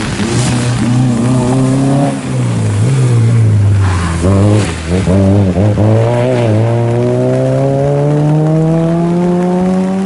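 Citroën Saxo rally car engine at full throttle on a wet stage. The revs rise, drop at a gear change about two seconds in, and waver with quick throttle lifts and blips through the corner about four to six seconds in. Then comes one long rising pull in a single gear, with a hiss of tyres through standing water in between.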